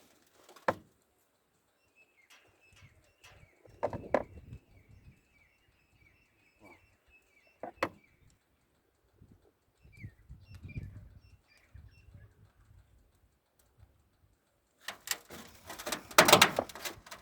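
Faint bird chirping: a quick run of short, high notes lasting several seconds. Occasional sharp clicks and a louder burst of rustling noise near the end.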